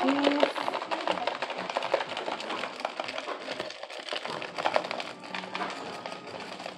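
Crispy fried onions shaken out of a canister, pattering and crackling onto a cheese-topped casserole in a glass baking dish as a dense run of small clicks.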